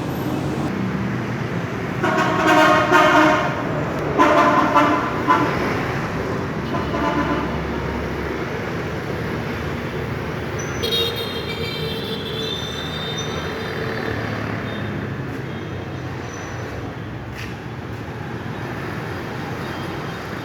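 Wood-sawing machine running steadily, with three loud whining passes in the first seven seconds as the blade cuts, then a fainter, higher-pitched whine about eleven seconds in.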